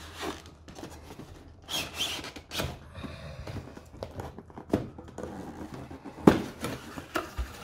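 Hands handling a cardboard kit box: the printed sleeve slides off and the lid is opened, with rubbing, scraping and a few knocks. The loudest is a sharp knock about six seconds in.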